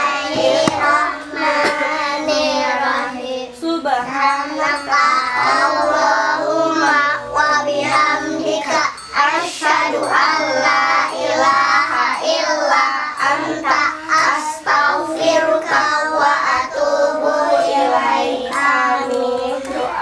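A group of young kindergarten children singing together.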